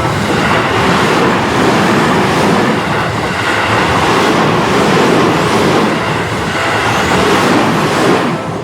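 Train passing close by at a level crossing: a loud, steady rush of wheel and car noise that starts at once and falls away near the end.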